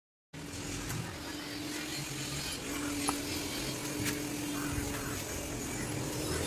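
Urban outdoor background noise with a low steady hum that drops out now and then and a few faint clicks. It starts abruptly after a brief silence.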